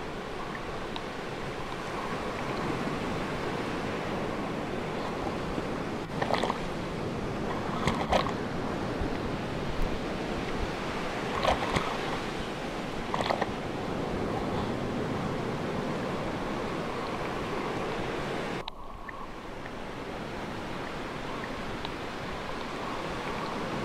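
Ocean surf: a steady wash of waves and water, with a handful of short, sharper sounds in the middle.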